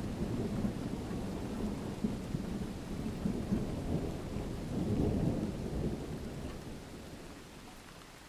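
Thunder rumbling low over steady rain. The rumble swells about five seconds in, then dies away, leaving the rain hiss.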